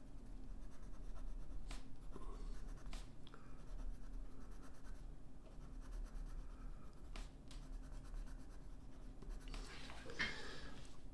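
Colored pencil scratching over sketchbook paper in shading strokes, with a few light taps of the pencil. A louder rustle of the paper about ten seconds in, as the sketchbook is shifted.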